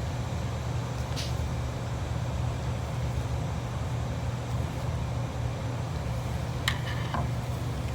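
Steady low mechanical hum of background machinery, with two light clicks, one about a second in and another near the end, as the seat removal tool is worked into the valve seat.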